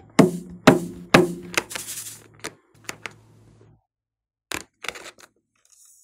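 Hands squeezing and handling a filled rubber balloon: a run of sharp taps and rubbery squeaks in the first half, then a few lighter clicks about four and a half seconds in as small scissors are brought to its neck.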